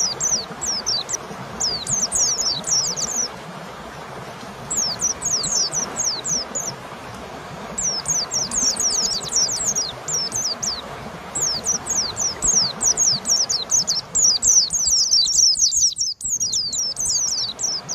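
White-eye (pleci) song: fast strings of high, thin notes, each slurring downward, in dense bursts broken by short pauses about four and seven seconds in.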